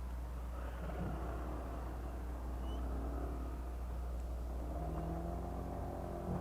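Honda PCX scooter's single-cylinder engine running while being ridden: a steady low rumble, with the engine note coming through clearer near the end.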